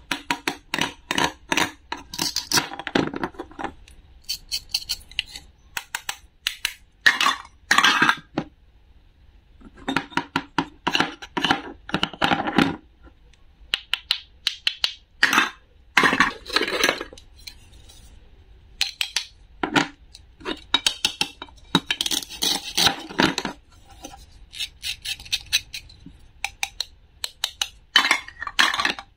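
Toy wooden and plastic play-food pieces clacking together and being cut apart with a toy wooden knife on a plastic cutting board: bursts of rapid clicks and knocks with short pauses between.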